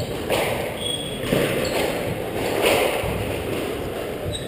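Squash rally: the ball is struck by rackets and hits the court walls, several sharp cracks about a second apart, each echoing in the enclosed court.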